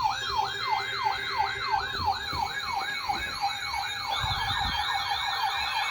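Electronic emergency-vehicle siren sweeping quickly up and down, about three times a second, then speeding up to about six sweeps a second around four seconds in.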